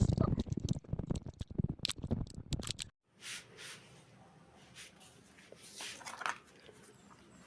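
Dense rustling and rapid clicking, like something being handled, that cuts off abruptly about three seconds in, leaving faint room sound with a few soft noises.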